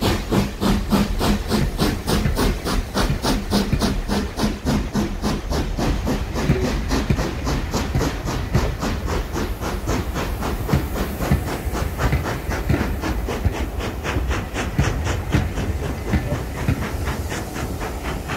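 Ivatt Class 2MT No 41241, a 2-6-2 tank steam locomotive, working hard with a fast, even beat of exhaust chuffs. Under it runs the steady rumble of its coaches rolling past on the rails.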